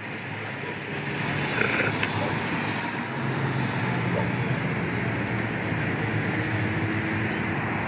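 Steady road traffic noise from passing cars, with a low engine hum; it grows a little louder about a second in, then holds.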